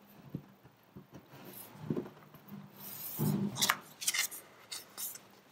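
Hands handling a small paper card and a strip of paper-backed mounting tape on a tabletop: light rustling and rubbing with a few small clicks, busiest a few seconds in.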